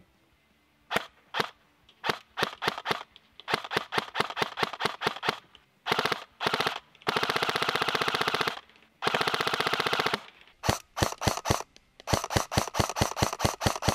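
EPeS airsoft electric gun (AEG) firing: single shots and short bursts, two longer full-auto strings near the middle, then more single shots and quick bursts. Its motor-driven gearbox cycles with a fairly soft report, not very loud thanks to the sorbo pad in its air system.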